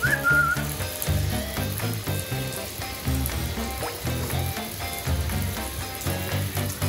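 Shower spray hissing steadily as the water runs over a dog, under background music with a stepping bass line.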